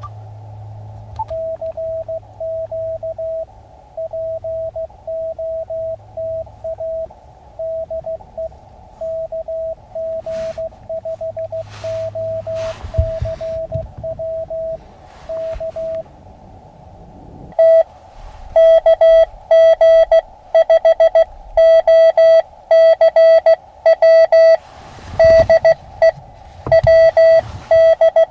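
Morse code (CW) from an Elecraft KX2 ham radio transceiver: a single steady beep keyed on and off in dots and dashes. Past the halfway mark the tone turns much louder and harsher.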